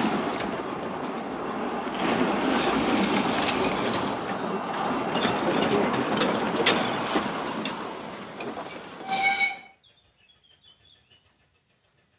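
Narrow-gauge Quarry Hunslet steam train passing close by: carriages and locomotives rumbling over the rails with sharp clicks at the rail joints. Near the end there is a short steam-whistle blast, then the sound cuts off abruptly.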